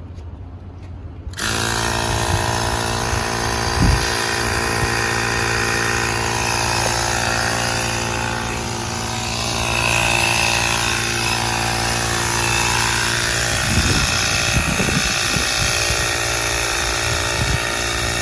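Portable battery-powered tyre inflator switching on about a second and a half in and running steadily, pumping up a flat car tyre to find the puncture. A knock about four seconds in and a few low thumps later on sit under the steady hum.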